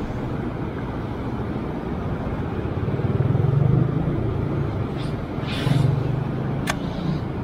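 Road traffic passing close by: vehicle engine noise that swells about three seconds in and again around six seconds, with a sharp click shortly before the end.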